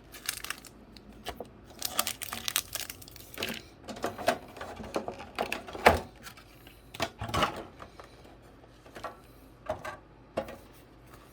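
Booster packs and box contents being handled: irregular crinkling of wrappers and packaging, with sharp taps and clicks as items are picked up and set down.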